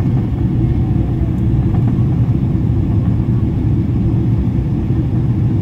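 Steady low rumble of engine and airflow noise inside a Boeing 777-300ER's passenger cabin, with no change in level.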